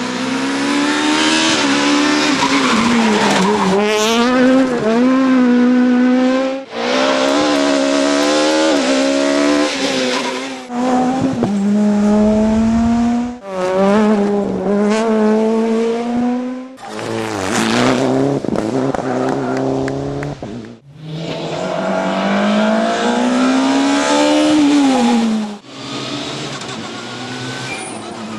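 Rally cars at full throttle on a gravel stage, among them a Suzuki Swift and a Mitsubishi Lancer Evolution. The engines rev up and drop back at each gear change, in a run of short passes cut abruptly one after another.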